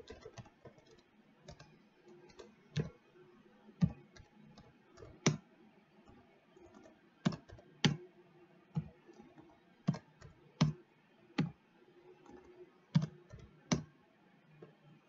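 Computer keyboard typing: separate key clicks struck slowly and unevenly, some close together and some a second or more apart.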